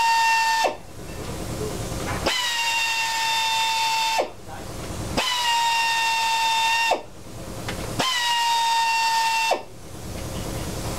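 Pneumatic hand tool on a coiled air hose running in four short runs, a steady high whine that settles slightly in pitch as each run starts and cuts off sharply when the trigger is released, as it spins off the carburetor mounting fasteners on an Evinrude/Johnson V-6 outboard powerhead.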